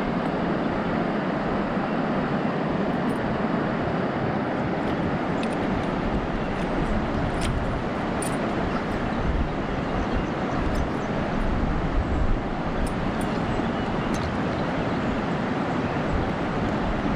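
Steady rushing of a river flowing over shallow riffles, with a few faint light clicks scattered through.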